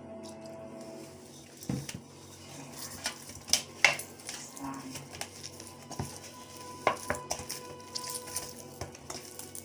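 Chin chin dough being mixed in a bowl: irregular clinks and knocks of the bowl and utensils, the loudest about four seconds in.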